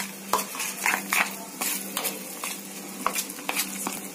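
A spoon stirring and scraping in a metal cooking pot, making irregular light clicks and taps.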